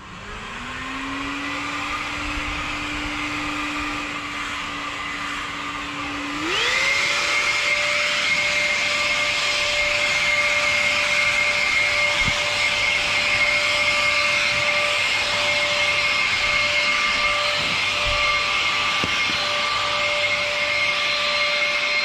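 1800-watt vacuum cleaner motor in a homemade PVC-pipe leaf blower, starting up and running with a whine over a rush of blown air. About six and a half seconds in it speeds up sharply to a higher, louder whine with stronger airflow, and holds there steadily.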